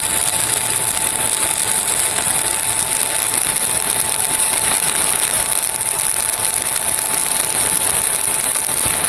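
Stick-welding (SMAW) arc running a straight drag bead on steel plate: a steady, very quiet, soft-running crackling hiss with no whipping of the rod. It cuts off at the very end as the arc is broken.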